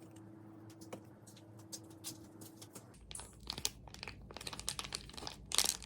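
Irregular crinkling and crackling handling noises, dense from about halfway through, over a faint steady hum.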